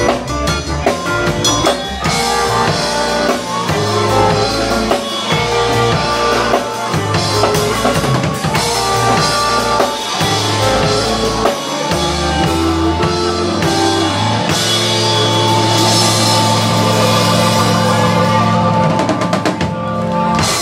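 Live rock band playing: electric guitar, electric bass and a drum kit with bass drum, snare and cymbals. The last several seconds are one long held chord over a cymbal wash that stops at the very end.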